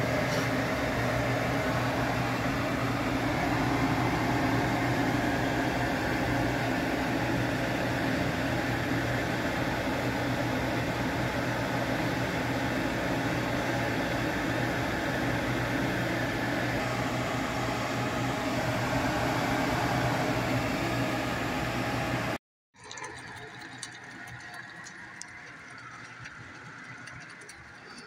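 A saucepan of sauce bubbling hard on an electric hob, under a steady whirring hum like a kitchen extractor fan. About three-quarters of the way through, the sound cuts off abruptly and gives way to quieter room sound.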